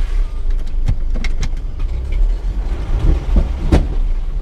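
Mitsubishi Triton 4x4 driving slowly over rough ground, heard from inside the cab: a steady low engine and road rumble. Several sharp knocks and clunks come through it, the loudest near the end.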